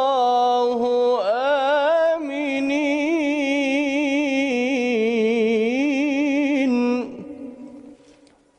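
A male Quran reciter's voice holding one long, ornamented melodic note in tajweed recitation, wavering in a quick vibrato. It breaks off about seven seconds in and fades away.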